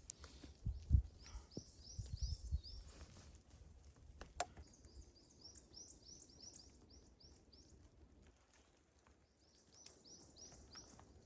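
A small bird calling: runs of short, high chirps, several a second, in three bursts. There are a few low thumps in the first three seconds and a single sharp click a little after the middle.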